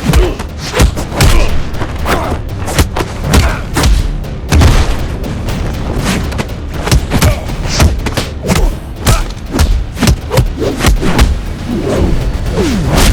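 A rapid, loud string of heavy booming hits and thuds, a few every second, over music: punch and impact sound effects laid onto a fight scene.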